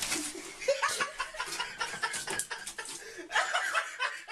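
A person chuckling and laughing in short bursts, with scattered clicks and rustles.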